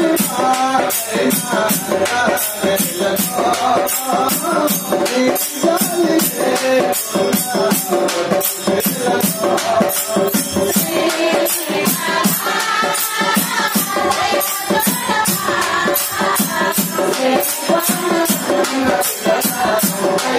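A group singing a Telugu devotional song (bhajan), voices together over a steady beat of jingling, rattling hand percussion.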